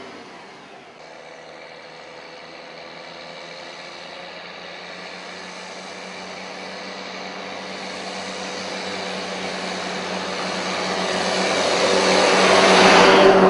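Case IH tractor engine running steadily under load while pulling a Jamesway Ultra Trac tanker, growing steadily louder as it approaches and is loudest near the end as it passes close by.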